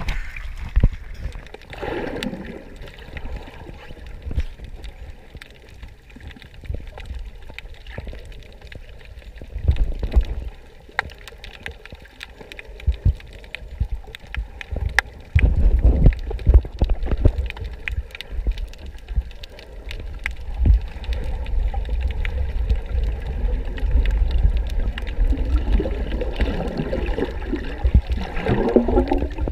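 Water moving and bubbling, heard muffled underwater, over a steady low rumble with scattered small clicks. The bubbling gets louder about two seconds in and again near the end.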